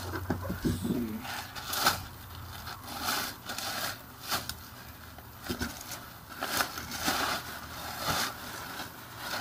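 Clear plastic wrapping crinkling and rustling in irregular bursts as an electric scooter is lifted out of its cardboard box and the plastic bag is pulled off it.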